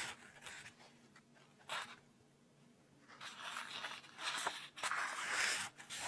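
Paper rustling close to the microphone as a book is handled, with its pages and cover turned: a brief rustle near the two-second mark, then longer crinkling rustles with small clicks in the second half.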